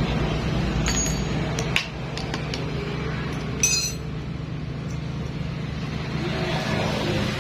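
Several sharp metallic clinks of metal tools or engine parts knocking together, the brightest with a short ring a little before four seconds in, over a steady low hum.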